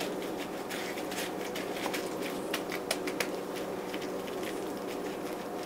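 Faint, scattered clicks and soft pats as gloved hands shape a tuna patty and press it into chicken-breast flour in a steel mixing bowl, over a steady background hum.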